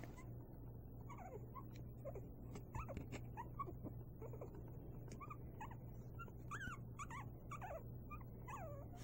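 Young puppies whimpering: many short, faint, high-pitched squeaks and little falling whines, scattered throughout.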